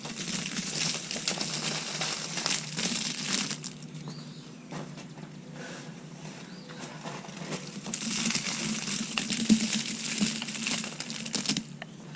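Mulch being worked over a flower bed, with the plastic mulch bag crinkling: two stretches of rustling and crinkling, the first at the start and the second from about eight seconds in, with a quieter spell between.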